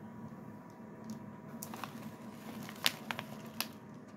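Plastic candy and toy packages being handled on a countertop: a few light crinkles and taps, over a steady low background hum.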